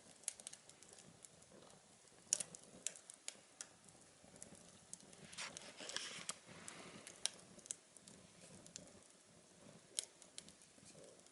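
Small wood fire crackling inside a tin-can stove: faint, irregular sharp pops and ticks, with a short hissing rush in the middle.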